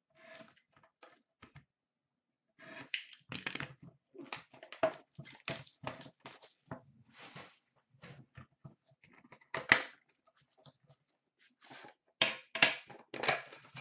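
A 2016-17 Upper Deck Premier hockey card box being opened by hand: cardboard and a plastic-wrapped pack rustling, tearing and clicking in irregular bursts, loudest about ten seconds in and again near the end.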